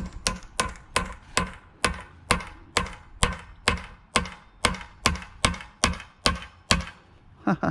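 Brass hammer tapping a new U-joint bearing cup into a Toyota driveshaft yoke, metal on metal: an even run of light taps, about two a second, stopping about seven seconds in.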